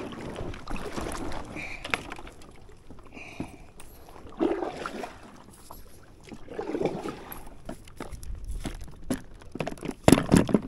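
Water sloshing and lapping around a small fishing boat, with scattered knocks and clicks against the hull. There is a louder clatter of knocks near the end.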